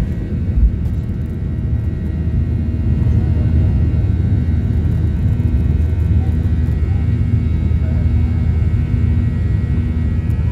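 Boeing 737 cabin noise during the takeoff roll and climb-out: the jet engines at takeoff thrust give a steady low rumble with a steady whine over it. There is a single thump about half a second in.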